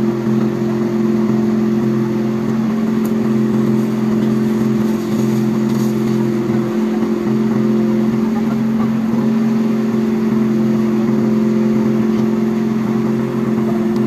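Fire truck's engine running steadily to drive its water pump, a loud drone that holds one pitch throughout.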